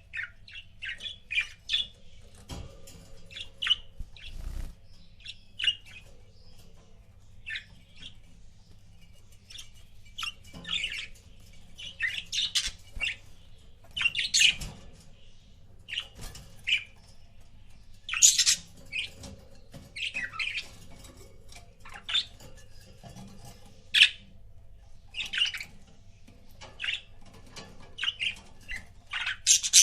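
Budgerigars chirping and squawking in short, sharp, irregular calls, several birds together.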